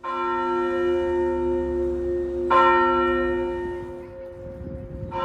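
A large bell struck three times, about two and a half seconds apart, each stroke ringing on with a long, many-toned hum; the middle stroke is the loudest.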